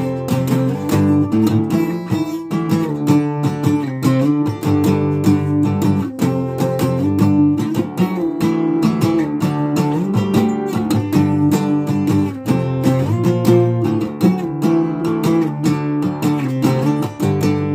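Acoustic guitar played with steady strumming, the chords changing every second or so.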